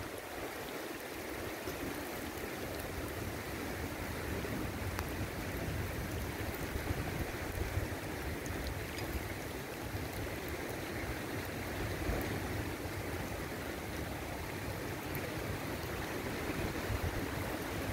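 Shallow river water running over a gravel and stone bed, a steady rushing babble, with a gusty low rumble of wind on the microphone underneath.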